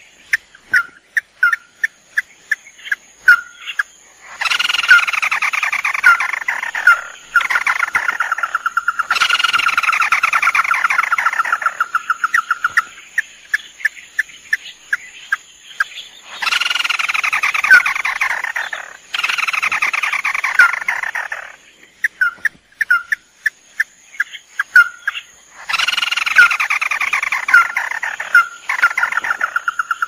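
Male and female crakes (tikusan mata merah) calling on a repeating lure recording: sharp single notes a few per second alternate with long, harsh, falling rattling phrases of several seconds, two of which end in a steady trill.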